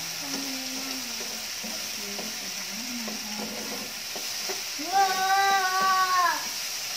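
Sliced mushrooms and chicken sizzling steadily in a frying pan, stirred with a spatula. About five seconds in, a voice holds one long note for a second and a half, louder than the frying.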